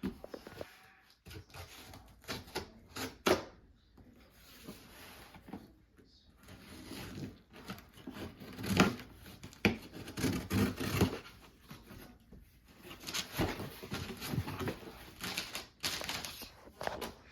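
A large cardboard box being opened and unpacked by hand: irregular clicks, knocks and rustling of cardboard and packing material, busiest past the middle.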